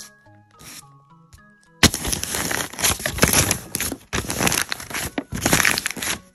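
A sheet of paper rubbed softly by a hand, then crumpled close to the microphone from about two seconds in: loud crackling in repeated surges as the hand squeezes it.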